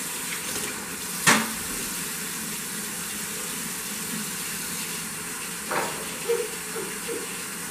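Kitchen faucet running into a metal cake pan held beneath it, a steady splashing hiss as the pan fills with water. A sharp knock comes about a second in, the loudest sound here, and two softer knocks follow near the end.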